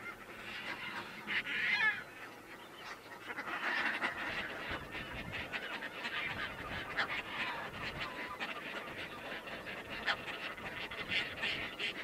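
Caspian terns calling in a nesting colony: many short calls from several birds overlapping, none standing out for long.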